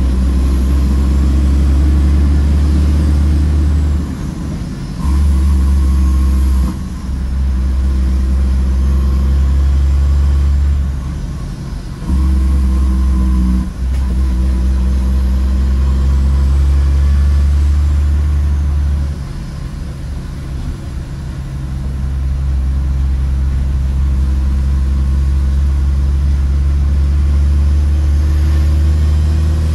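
Shacman F3000 dump truck's diesel engine pulling steadily under load, heard from inside the cab. The drone drops off briefly several times and then comes back, as the driver shifts through the gears.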